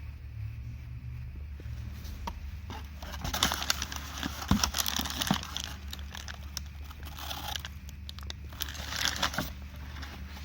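A misfiring BMW 318i's 2.0-litre four-cylinder engine running at idle as a steady low hum. Over it come two spells of crackling, scraping rustle, about three seconds in and again near nine seconds.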